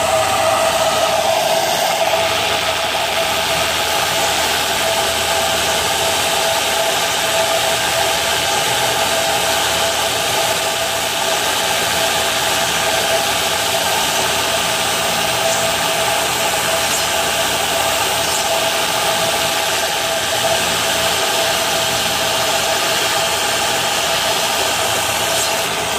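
Shaft polishing machine running with its abrasive belt pressed against a spinning Mazda 13B rotary eccentric shaft: a steady whir with a constant whine and hiss, polishing the shaft without taking metal off.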